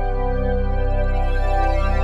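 Background music of slow, held chords.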